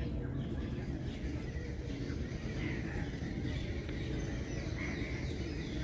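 Birds chirping and calling faintly over a steady low rumble of background noise.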